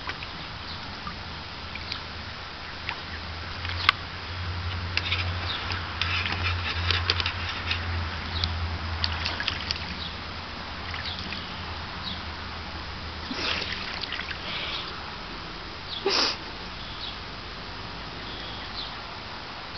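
Savannah cat pawing at shallow water in a plastic wading pool while chasing small fish, a busy run of small splashes and drips between about four and ten seconds in, then scattered ones, with one short, sharper sound about sixteen seconds in.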